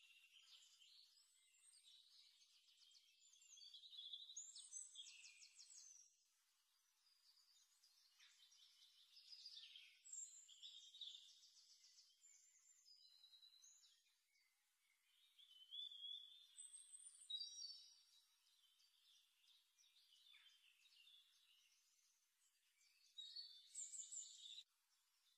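Faint birdsong: a string of high chirps, rapid trills and short whistled glides.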